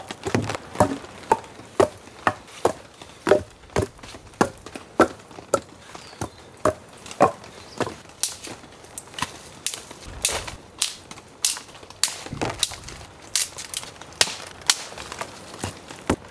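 Wet dead sticks snapped by hand one after another for kindling: a run of sharp cracks, about one or two a second, with rustling of twigs and lichen between.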